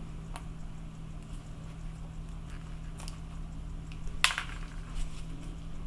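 Small clicks and taps from gloved hands handling chocolate bonbons on cake pop sticks, a few scattered ones with the sharpest about four seconds in, over a steady low hum.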